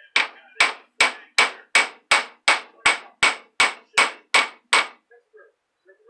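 Ball-peen hammer striking metal in a quick, even run of about thirteen blows, nearly three a second, each with a short sharp ring; the blows stop about five seconds in.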